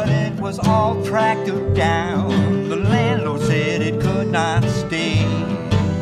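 Acoustic jug-band blues instrumental: plucked and strummed strings keep a steady beat while a lead line bends and wavers over it.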